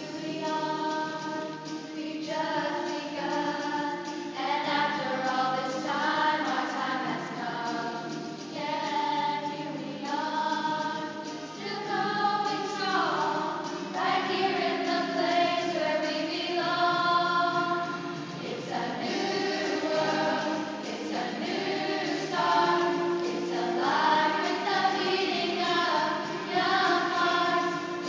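A choir singing sustained, slow phrases.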